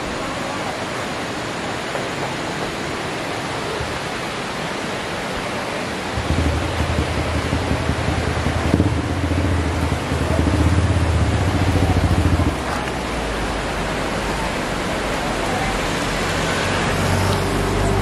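Cars driving past on a road, engines loudest from about six to twelve seconds in, with another vehicle coming up near the end, over a steady rush of waterfall water.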